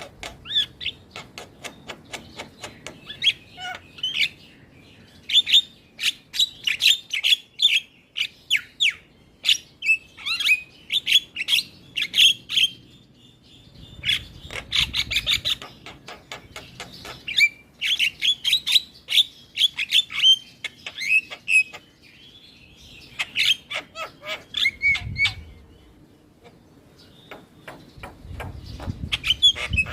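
Javan myna singing in bouts of fast, chattering song, a mix of harsh clicking notes and brighter calls, broken by short pauses.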